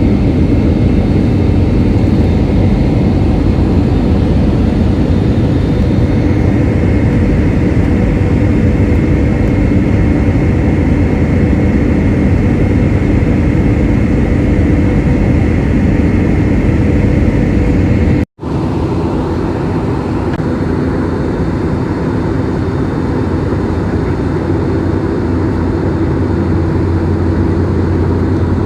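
Steady drone of a jet airliner's engines and rushing air, heard from inside the passenger cabin. It cuts out abruptly for an instant about two-thirds of the way through, then goes on with a stronger low hum.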